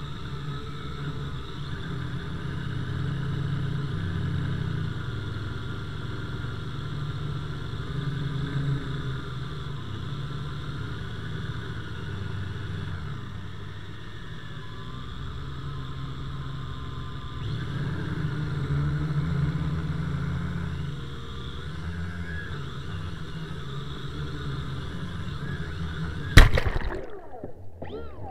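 Quadcopter drone's motors and propellers whirring steadily, heard through its onboard camera, wavering a little in pitch. Near the end comes one sharp loud hit as it crashes into the sea, after which the sound turns muffled and underwater.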